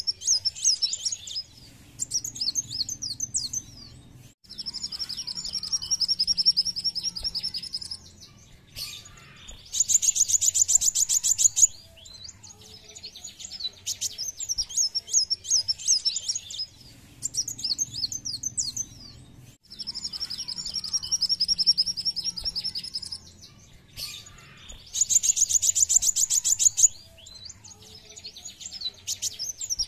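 A male kolibri wulung sunbird singing in high, rapid phrases about two seconds long with short pauses between them. The phrases alternate between quick twittering notes, a steady buzzy trill and a higher, faster trill, and the same run of phrases comes round again about halfway through.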